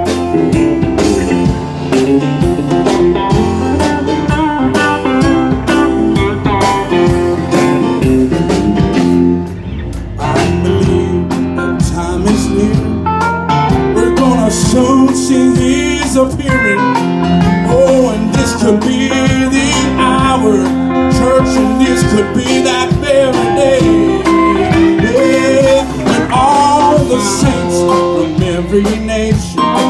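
Live gospel band playing, an electric guitar taking the lead over drums and keyboard.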